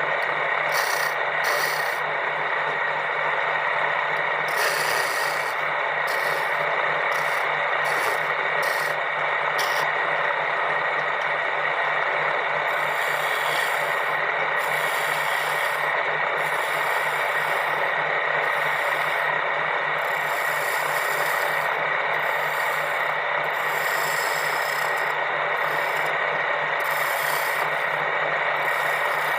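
An electric woodworking power tool running steadily with a whine, with repeated irregular stretches of hissing as it rubs or cuts into wood.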